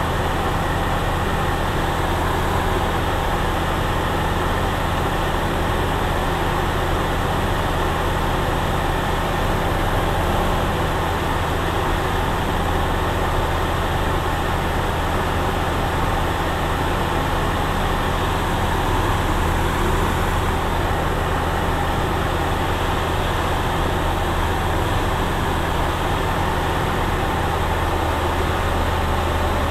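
Single-engine light aircraft's engine and propeller running steadily, a constant drone with a low hum, heard from inside the cockpit.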